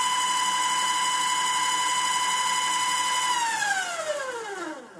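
180 W AC servo motor driving a rotary-axis lathe chuck at 1000 RPM through a toothed belt, giving a steady high whine that the owner finds quite noisy. A little over three seconds in it is stopped, and the whine falls in pitch as the drive spins down.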